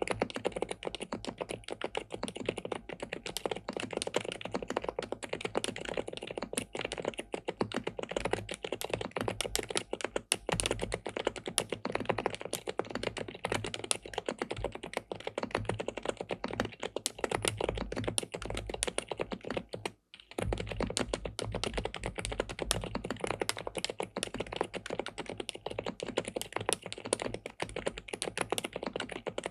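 Fast, continuous typing on an SPM PL87W tenkeyless mechanical keyboard with a polycarbonate plate and linear switches, the keystrokes clacking in a dense stream. The typing breaks off for an instant about twenty seconds in, then resumes.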